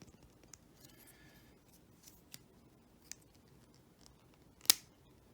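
Small plastic Transformers Micromaster figures being handled and pegged together into a weapon: scattered light plastic clicks and a brief rub, with one sharp snap near the end.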